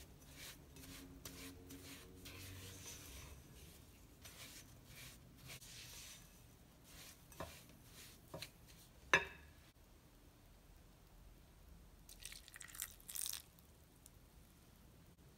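Red silicone spatula stirring crumbly cookie dough in a glass bowl with soft, repeated scraping strokes, then a few sharp taps against the bowl, the loudest about nine seconds in. Near the end comes a short splashy pour as milk goes into the bowl.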